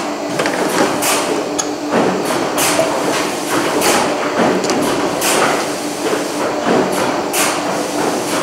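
Steady hum of a running vertical injection molding machine, with irregular sharp metal clacks as steel cable-holding fixtures are handled and set down on its steel table.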